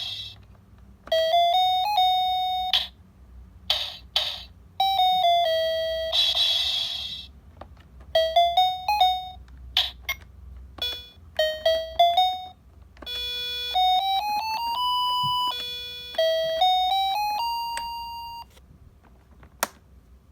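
A cheap electronic toy keyboard playing short phrases of bright, chime-like notes, with several quick rising runs, a few held tones and some short hissy percussion-like bursts in between.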